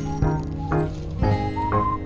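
Background music: a light, jingly tune with a melody line over a regular beat.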